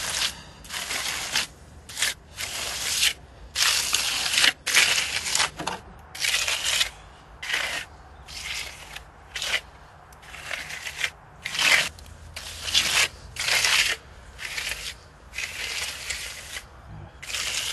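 A hand tool scraping and rubbing fresh earth plaster into a reed canisse mat set in the wall: a run of short, rough strokes coming irregularly, about one to two a second.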